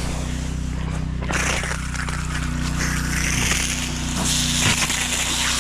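Small gasoline water pump engine running steadily, with water starting to hiss out of the hose about a second in.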